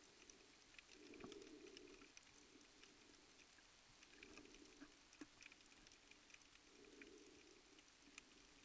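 Faint underwater ambience heard through a submerged camera: scattered crackling clicks, with a low muffled swell that rises and fades every two to three seconds.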